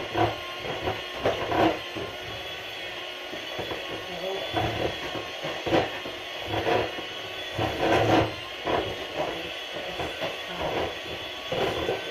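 Chocolate cake batter being mixed in a bowl: irregular scrapes and knocks of the utensil against the bowl, coming in uneven clusters.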